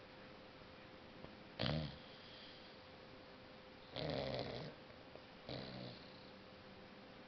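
Six-month-old boxer puppy snoring in deep sleep: three separate snores, the first, just under two seconds in, the loudest and the second the longest.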